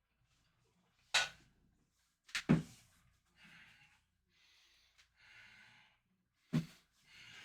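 Four sharp knocks, two of them close together, as the exercise bar strikes the cushioning pads, with a man's heavy breaths between them from the exertion.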